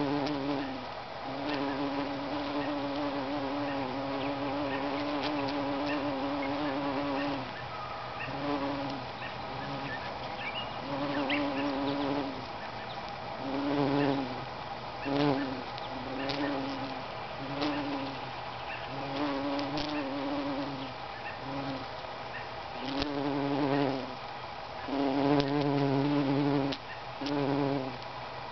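Bumblebee buzzing in flight around lupin flowers: a low hum that wavers slightly in pitch, long and unbroken for the first several seconds, then starting and stopping in short spells as the bee lands on flowers and takes off again.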